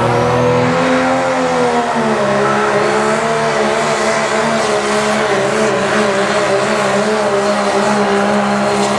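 Modified diesel four-wheel-drive pickup engine running flat out under heavy load as it drags a weight-transfer pulling sled. The engine note sags about two seconds in, then holds steady.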